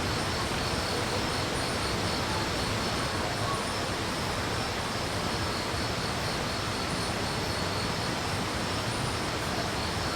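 Steady rush of a waterfall and stream, with insects chirping in faint, high-pitched pulses.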